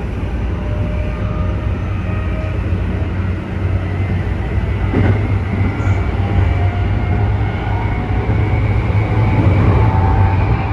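Keikyu 1000 series electric train running, its traction motors giving a loud whine of several tones over a steady low hum and rail noise. The whine rises in pitch in the second half, and there is a single knock about five seconds in. The motor noise is unusually loud and counts as abnormal for this set.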